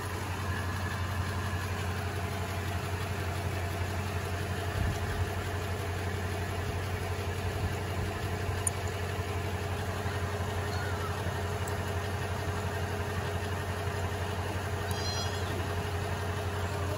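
A vehicle engine idling steadily. A brief high chirp sounds near the end.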